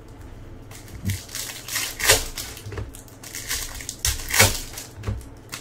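Foil wrapper of a Topps Chrome baseball card pack crinkling and tearing as it is ripped open by hand, in several short crackles.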